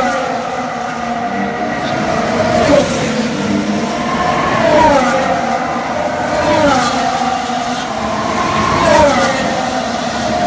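Formula 1 cars' 1.6-litre V6 turbo-hybrid engines running past one after another, each engine note falling in pitch, about every two seconds.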